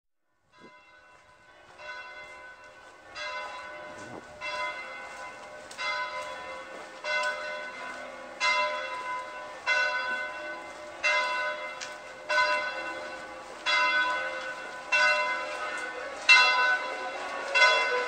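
A church bell tolling in a steady rhythm, about one stroke every second and a quarter, each stroke ringing on into the next. It fades in from faint and grows louder.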